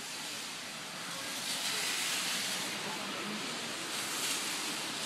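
Steady hiss of rain falling, a little louder in the middle.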